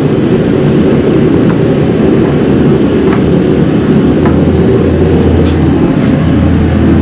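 Loud, steady machine drone with a low hum, and a few faint light clicks about one and a half, three and four seconds in.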